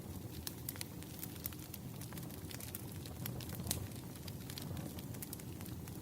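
Wood fire crackling: a steady low rumble of burning firewood with irregular sharp pops and snaps, several a second.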